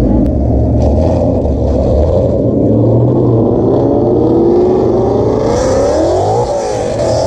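A car engine revving up over a steady low rumble, its pitch rising for several seconds, then dropping briefly and climbing again near the end.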